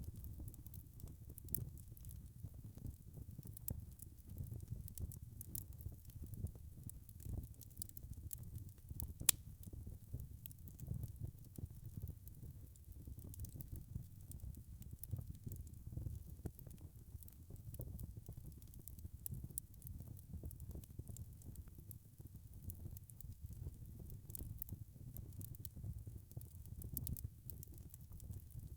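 Wood fire burning: a low rumble of flames with frequent small crackles and pops, and one sharper pop about a third of the way in.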